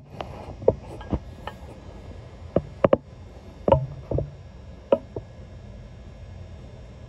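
Inside a Yoro Railway 600 series train car on the move: a steady low running rumble with a series of irregular sharp clacks and knocks through the first five seconds or so, after which only the rumble goes on.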